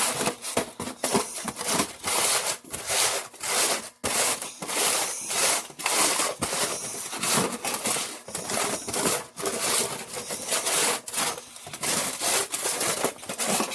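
Mini bike's 420 roller chain being worked by hand in bar oil: irregular rubbing and rustling strokes of the links moving against each other.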